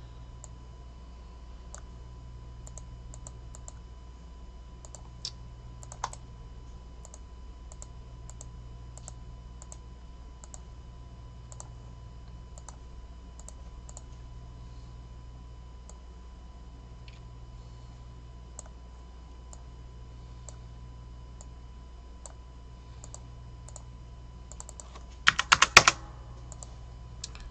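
Faint, scattered computer keyboard and mouse clicks over a steady low hum, with a quick, loud run of clicks near the end.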